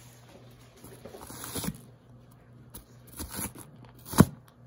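Chef's knife chopping onion on a cutting board: a few irregular chops and scrapes, with the loudest knock of the blade on the board near the end.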